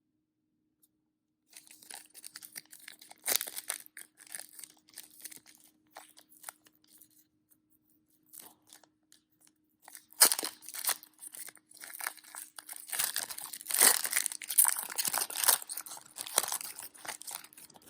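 Plastic wrapper of a trading-card pack crinkling and tearing as it is opened, in scattered rustles that turn into dense, louder crinkling about ten seconds in.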